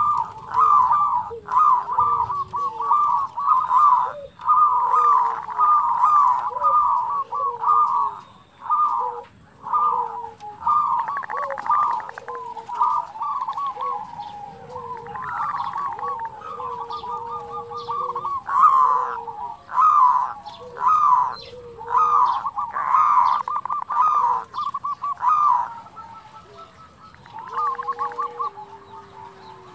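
Zebra dove (perkutut) cooing: rapid rolling, trilled coo phrases repeated one after another with short gaps, with lower gliding notes beneath, easing off briefly about a third of the way in and again near the end.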